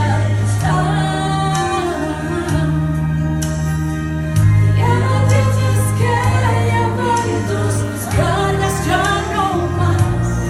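A woman singing a Christian worship song into a handheld microphone over musical accompaniment with sustained bass notes that change every couple of seconds.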